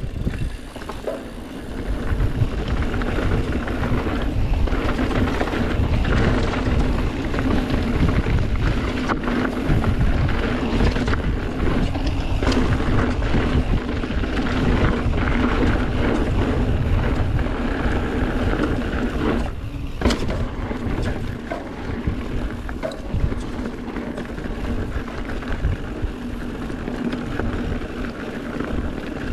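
Mountain bike riding down a dirt trail: continuous tyre rumble, with the bike frame and parts rattling and knocking over bumps, and wind rushing over the helmet- or bike-mounted action camera's microphone.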